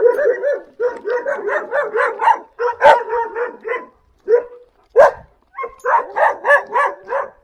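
Kangal shepherd dogs barking in rapid runs of several barks a second, with short breaks, at something they have spotted.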